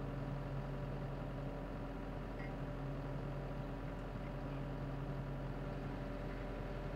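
Geoprobe 8040DT drill rig's engine running steadily, a constant low hum with no hammer blows.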